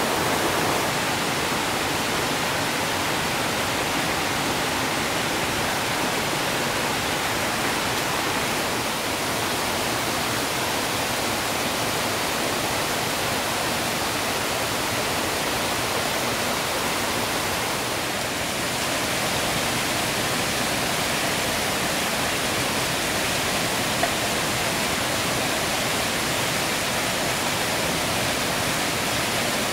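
Steady rush of water from a forest stream tumbling over rocks and a small waterfall.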